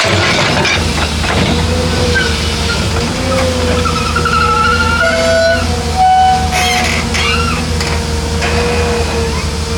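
Excavator's diesel engine running under load with a steady, slightly wavering whine and a few short high squeals in the middle.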